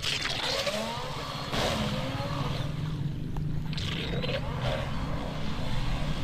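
Joysway 8301 V4 RC speedboat's electric motor being throttled in several short bursts, a whine that rises and falls, each burst with a hiss of spray, over a steady low hum.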